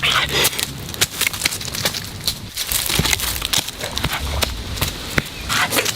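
Irregular sharp clicks and knocks, several a second, over a steady rustling background.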